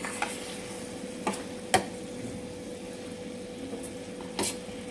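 Thick jaggery syrup with ginger, ajwain and black pepper simmering in a pan with a soft steady sizzle. A spoon stirs it, giving a few sharp clicks against the pan, the loudest a little under two seconds in and another short pair near the end.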